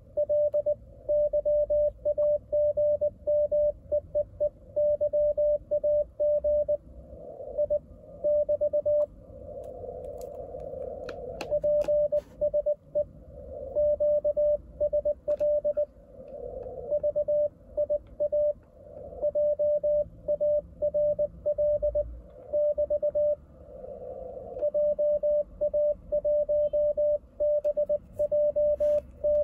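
Morse code (CW) signal heard through an Icom IC-705 transceiver's speaker: a single steady beep keyed in dots and dashes, with band hiss rising in the pauses between words. The incoming station is sending '4 EL YAGI', 'PSE QSL VIA JARL' and the callsign JA1BJT, the closing exchange of the contact.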